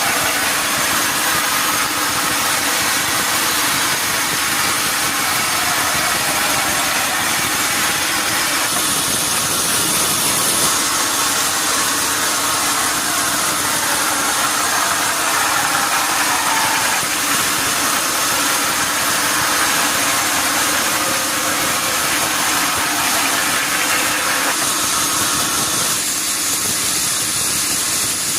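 Sawmill machinery running steadily, a loud mechanical noise whose character changes abruptly several times.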